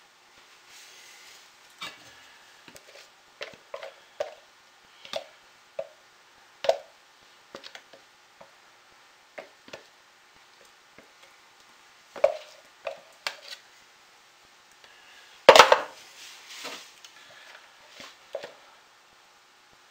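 Spatula knocking and scraping against a pouring cup while soap batter is drizzled out, as irregular light clicks and taps, with one much louder knock about three-quarters of the way through.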